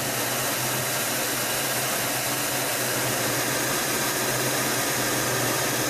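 Steady jet engine noise, an even hiss over a low hum, from a B-2 Spirit's four General Electric F118 turbofan engines as the bomber taxis.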